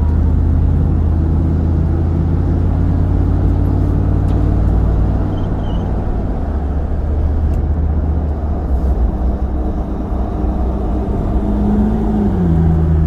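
Truck running on the road, a steady low engine hum mixed with road noise. Its pitch rises and falls briefly near the end.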